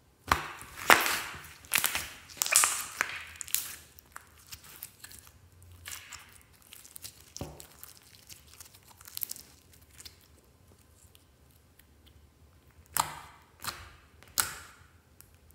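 Sticky slime being stretched, pressed and kneaded by hand, crackling and popping as it pulls apart and folds. The crackling comes in clusters, thick in the first few seconds and again near the end, with only a few small pops in between.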